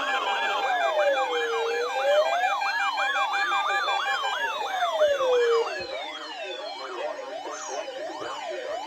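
Several electronic sirens layered over one another, as in an exaggerated Emergency Alert System test mashup: slow wails rising and falling alongside a fast yelp sweeping about three to four times a second, over steady alert tones. About six seconds in the louder layers cut out, leaving a slower yelping sweep.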